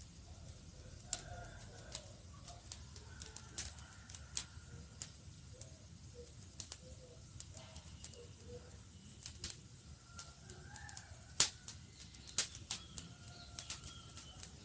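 Campfire crackling: irregular sharp pops and snaps of burning wood over a low steady rumble, the loudest pop about eleven seconds in. Faint wavering tones sound softly underneath.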